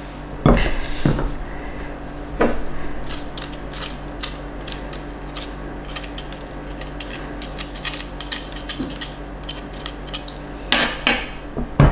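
Kitchen knife cutting around the stem and core inside a raw red bell pepper: a run of quick, crisp little cuts and scrapes. A few louder knocks come near the start and again near the end.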